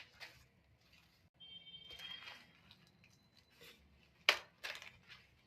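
Fresh sweet corn cob being husked by hand: faint rustling and tearing of the leaves, with one sharp snap about four seconds in.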